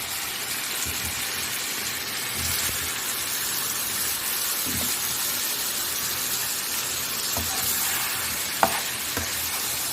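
Chopped tomatoes frying in a pan of hot oil with chicken and spices, giving a steady sizzle. A spoon stirs and knocks against the pan now and then, with a sharper click about nine seconds in.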